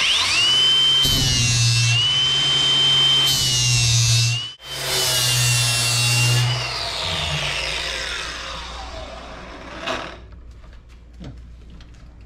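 Ryobi ONE+ HP brushless 4½-inch cordless angle grinder with a 40-grit flap disc grinding the cutting edge of a steel mower blade: a high, steady motor whine over the rasp of the disc, broken off briefly near the middle. A little past halfway it is switched off and winds down in a falling whine, followed by a single knock.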